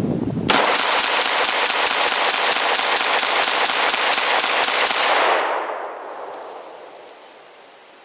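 A 7.62x39 AR-15 rifle fires a full magazine in rapid succession: about twenty evenly spaced shots at roughly four a second, starting about half a second in and stopping a little past the middle. The rifle cycles every round without a stoppage. The last reports ring away over the next couple of seconds.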